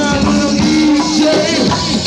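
Live go-go band playing: drum kit and percussion keep a steady groove under sustained pitched notes.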